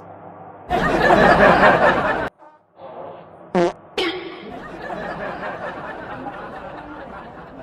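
A loud fart sound effect lasting about a second and a half, then a short pitched squeak, followed by people laughing and talking.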